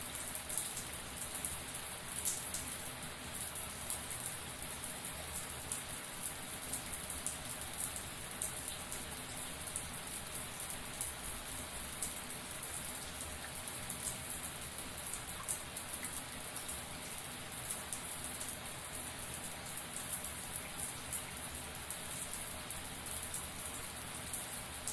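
Shower running steadily, its spray and drops pattering on a hard surface in a dense, even hiss.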